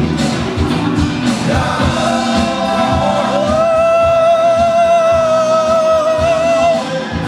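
Live rock band playing, with electric guitars, drums and keyboards under a singer. From about three seconds in, a singer holds one long note with a light vibrato for about three and a half seconds.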